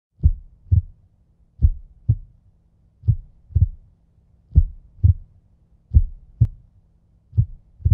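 Slow heartbeat sound effect: deep paired thumps (lub-dub), about six double beats, one every second and a half or so, over a faint low hum.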